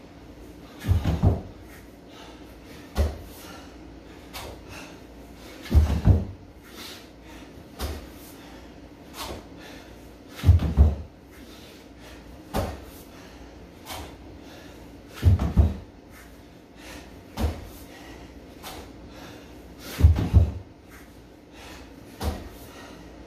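Repeated burpees on a matted gym floor: a heavy double thump of the body dropping and landing about every five seconds, with a lighter thump between each pair.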